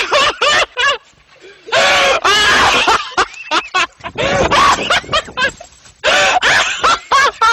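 A person screaming loudly: several long, high screams with wavering pitch, with short bursts of laughter between them.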